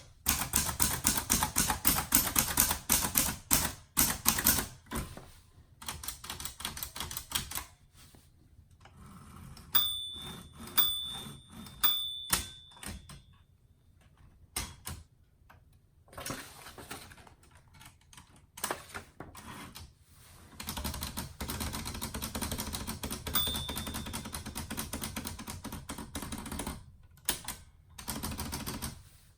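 1955 Empire Aristocrat manual portable typewriter being typed on: rapid runs of keystrokes with pauses between. Around ten to twelve seconds in come three louder strikes, each with a short ring.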